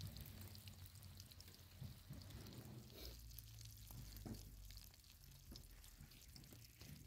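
Faint sizzling of dough pastries frying in a pan of hot oil, with scattered small pops and crackles.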